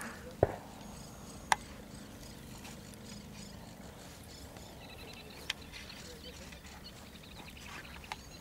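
Quiet outdoor ambience with a low steady hum that fades after a few seconds, several sharp clicks (the loudest about half a second and a second and a half in), and faint high chirping.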